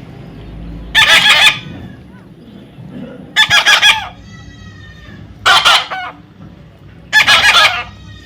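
Pet parrot squawking: four loud, harsh calls about two seconds apart, with faint softer chirps between them.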